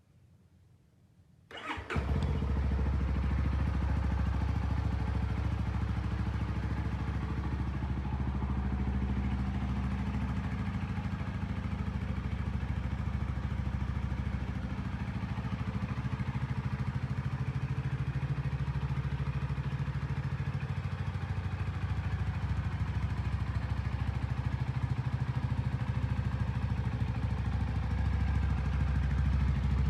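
CFMOTO 300SS motorcycle's single-cylinder engine starting about a second and a half in, then idling steadily, a little louder near the end. It is being run for a minute or two on freshly changed oil and filter.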